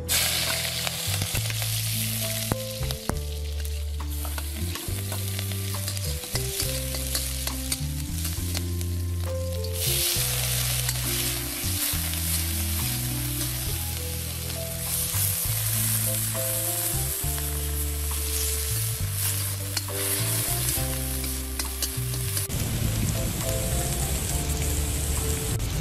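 Oil sizzling in a kadai (wok) as chopped garlic, green chilli and onions fry, with a steel ladle clinking and scraping as they are stirred. The sizzling grows louder about ten seconds in. Background music with a steady bass line plays underneath.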